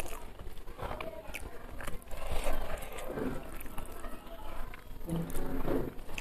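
Close-miked eating by hand: fingers squishing and scraping rice and egg yolk around a plate, with chewing and lip-smacking mouth sounds in irregular clicks and short bursts.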